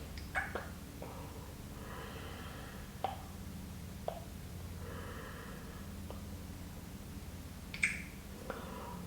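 Close-miked ASMR kissing sounds: a handful of short, wet lip smacks, the loudest near the end, with slow breaths drawn between them. A steady low hum lies under it all.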